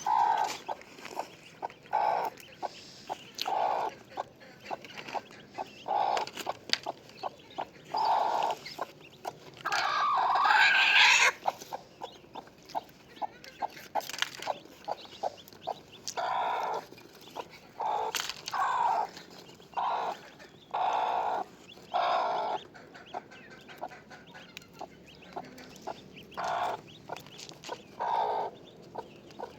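Chickens clucking in short repeated calls, with one longer, louder call about ten seconds in, likely a rooster crowing, and many short clicks between the calls.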